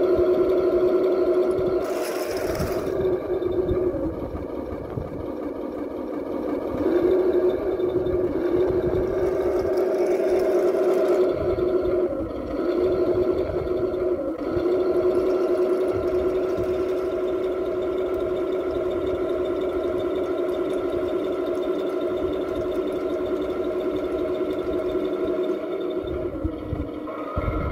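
Heng Long King Tiger RC tank running, a steady pitched electric-mechanical hum from its motors and sound unit as it drives off, with a brief hiss about two seconds in.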